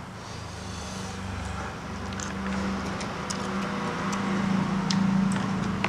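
Close-miked eating sounds: fingers mixing rice on a plate, with chewing and small mouth clicks. Under them runs a steady low hum that swells louder about five seconds in.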